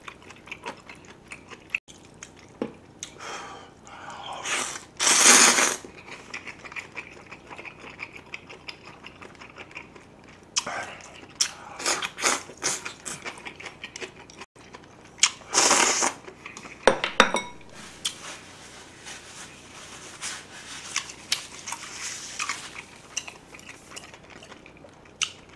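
Close-miked slurping of noodles and beef bone broth (seolleongtang), with wet chewing between. There are several loud slurps, the loudest about five seconds in and again around sixteen seconds.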